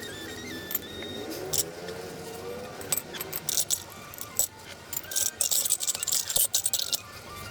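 Small hard objects clinking and rattling as they are handled, in quick clusters that grow busier in the second half, over soft background music.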